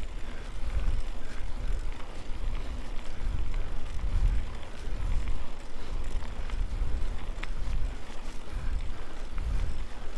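Wind buffeting the microphone during a mountain bike ride: a low rumble that swells and fades in gusts, with a few faint clicks from the bike.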